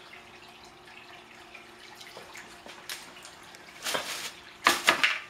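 Aquarium water trickling and dripping under a faint steady hum. Two louder rushes of water-like noise come near the end, under a second apart.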